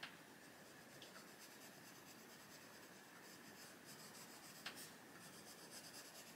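Castle Arts Gold coloured pencil shading across a colouring-book page: a faint, steady scratching of pencil lead on paper, with one light tick about four and a half seconds in.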